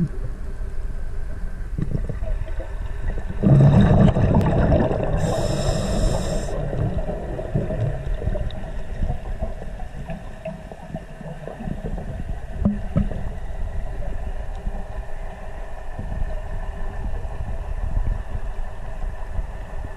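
Low, steady underwater rumble of water moving against a camera's waterproof housing, with a louder gurgling gush about three and a half seconds in that lasts about three seconds and carries a brief high hiss near its end.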